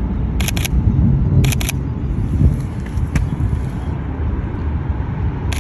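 Sony A7III camera shutter firing: a short double click about half a second in, another about a second later, and one more right at the end, over a steady low rumble.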